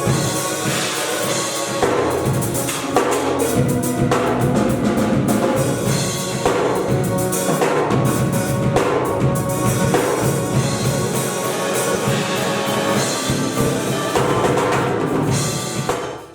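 Instrumental music with a drum kit keeping a steady beat, cutting off abruptly near the end.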